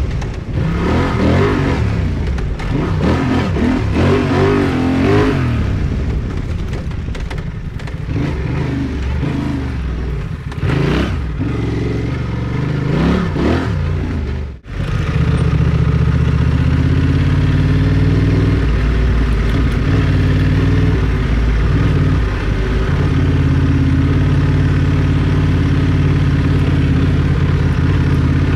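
Motorcycle engine revving up and down as it is ridden over off-road terrain. About halfway through the sound briefly drops out, then the engine runs at a steadier, more even pace.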